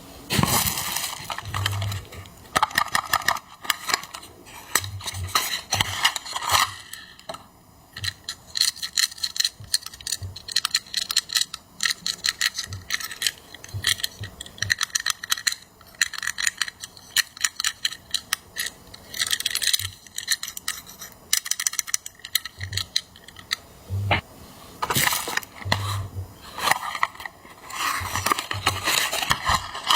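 Small diecast toy vehicles and their packaging being handled: quick clicks, taps and light metallic clinks, with spells of scratchy rustling and a few soft thuds.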